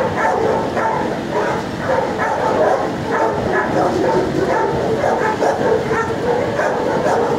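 Many dogs barking without a pause in a shelter kennel block, their barks overlapping one another.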